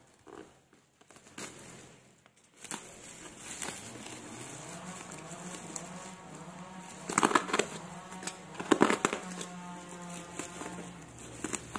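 Plastic mailing bag, packing tape and bubble wrap crinkling and tearing as a parcel is unwrapped by hand. The crinkling is loudest in two bursts, about seven and nine seconds in, over a steady low hum.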